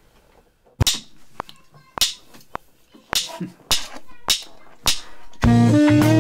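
A backing-track count-in of six sharp clicks, two slow then four twice as fast, then about five and a half seconds in a blues backing track and a tenor saxophone start playing together.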